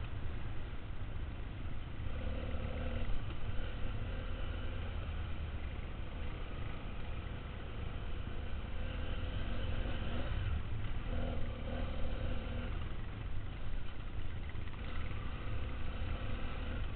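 Dual-sport motorcycle engine under changing throttle, its pitch rising and falling several times as the rider opens and closes the throttle. Heard from a helmet-mounted camera, with heavy wind rumble on the microphone.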